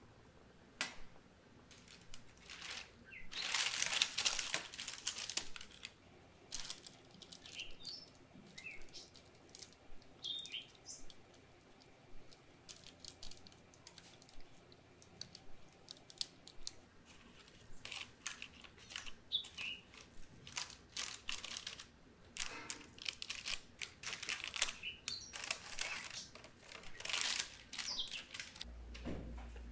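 Parchment paper crinkling and rustling as it is fitted into a metal baking pan, loudest a few seconds in. Then many soft clicks and taps as a spatula scrapes thick brownie batter into the pan, with a few short high chirps here and there.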